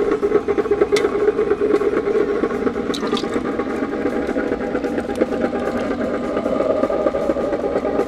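Cuisinart electric ice cream maker running, its motor turning the freezer bowl past the dasher with a steady whirring hum and a rattle, with a couple of light clicks. Chocolate ice cream base is poured into the turning bowl from about three seconds in.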